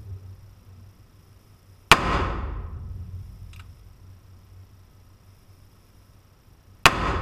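Ruger Old Army black powder cap-and-ball revolver firing two shots about five seconds apart. Each shot is a sharp crack followed by a long echoing decay in the indoor range, with a faint click between them.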